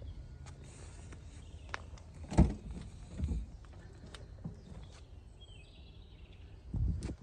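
Footsteps and handling thumps and clicks from someone walking around a parked car, over a low outdoor rumble. The loudest thump comes about two and a half seconds in, and there are further thumps about three seconds in and near the end.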